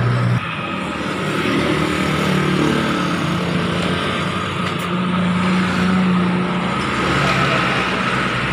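Steady running motor-vehicle engine noise with a constant low hum.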